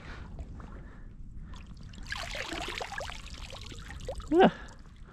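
Water pouring and dripping off a shot Canada goose as it is lifted from the water by the neck, strongest for about a second and a half a couple of seconds in. A brief loud pitched sound stands out just after four seconds.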